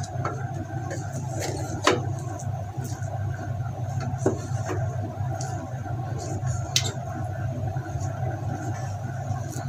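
Wooden spatula stirring cooked yellow rice in a rice cooker's metal inner pot, giving a few short knocks and scrapes against the pot over a steady low hum.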